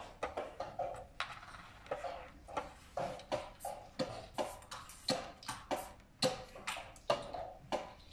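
Plastic draughts pieces clacking on the board and a chess clock being pressed during a blitz game: a quick run of sharp clicks, about two or three a second.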